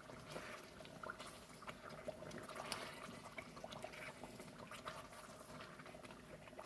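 Tomato and pepper stew simmering in a pot, with faint, irregular bubbling and popping.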